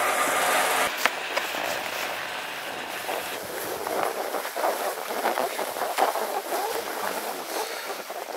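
A steady mechanical hum cuts off abruptly about a second in. It gives way to irregular crunching steps on packed snow, with wind on the microphone.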